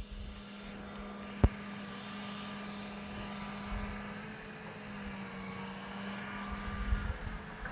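Excavator engine running at a steady speed with a steady hum. A single sharp knock about one and a half seconds in, and low rumbling that swells near the end.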